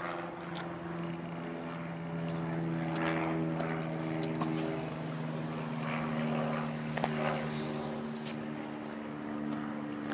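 A steady engine drone, with a few swells of passing traffic noise.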